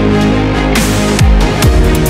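Electronic dance music soundtrack with deep, pitch-dropping kick drums about twice a second over held synth tones, with a rushing noise swell near the middle.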